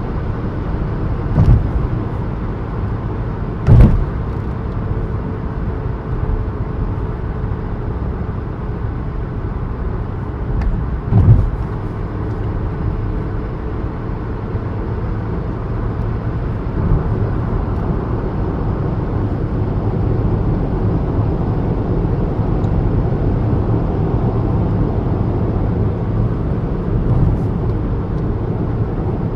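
Car engine and road noise heard from inside a moving car, a steady low rumble that picks up a little about halfway through. Three sharp thumps break in during the first dozen seconds.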